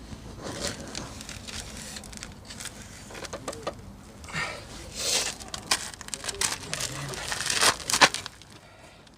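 Irregular rustling, scraping and clicking of hands handling tools and car parts, with the densest bursts about halfway through and again near the end.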